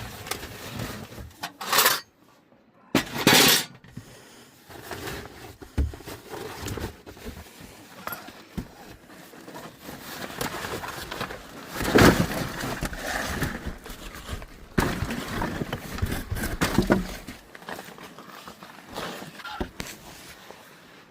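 Dry twigs and sticks snapping and crackling as firewood is broken up and handled, in an irregular run of cracks with a few louder bursts, about two seconds in, three and a half seconds in and around twelve seconds.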